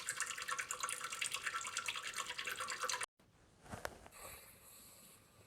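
A dense, rapid, high-pitched crackle of tiny clicks that cuts off abruptly a little over halfway. After a short gap comes a much quieter close-miked recording of a human stomach: one short low gurgle, then soft rumbling.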